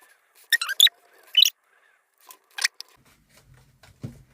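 Several short, sharp clicks and scrapes of something small being handled, spread over the first three seconds.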